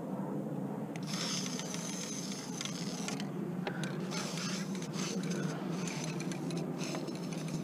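Aerosol spray paint can spraying in several hissing bursts of a second or two each, over a steady low hum.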